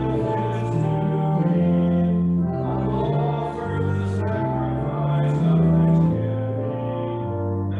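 Organ playing a slow hymn in held chords that change every second or so.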